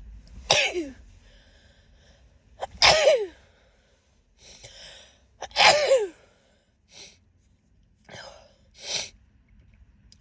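A woman sneezing three times in a fit, each sneeze a loud, sudden burst with a voiced cry that falls sharply in pitch, with short, quick breaths between and after.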